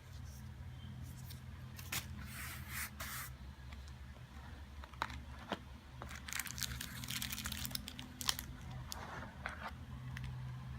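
Headphone packaging being handled and opened: two spells of rustling and crinkling, about two seconds in and again past the middle, with a few sharp clicks, over a steady low hum.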